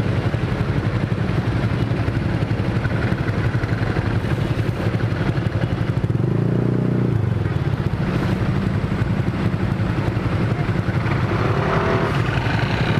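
Scooter and motorcycle engines running in slow, stop-and-go traffic, among them a Honda Vario 150 with an F2Racing aftermarket exhaust, making a steady low drone. About six seconds in, the engine sound swells for about a second.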